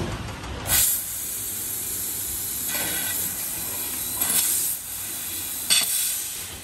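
Fiber laser tube cutter cutting 32 mm stainless steel tube: a steady hiss of the gas jet at the cutting head, starting sharply about a second in, with a few brief louder surges as holes are pierced and cut.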